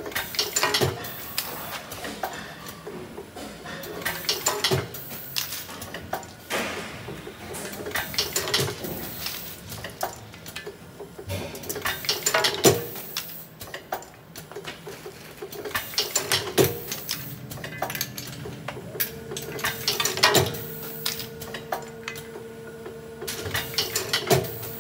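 Automatic plastic water-tap assembly machine at work: sharp clicks and clatter from its pneumatic cylinders and rotary table as plastic tap parts are seated, repeating about every four seconds, with lighter rattling of plastic parts in between. A steady hum comes in near the end.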